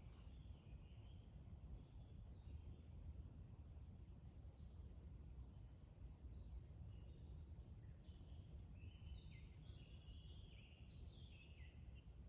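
Faint forest ambience: a steady low rumble under scattered small bird chirps that grow busier near the end, with a steady high hiss.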